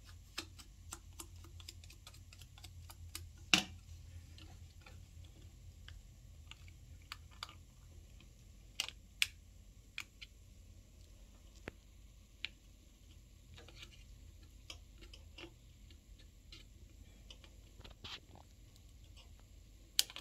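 Scattered light clicks and ticks of hands working on a TV's flat ribbon cable and its connector, cleaning it with an alcohol swab, with a sharper click about three and a half seconds in and a few more near nine seconds and at the end.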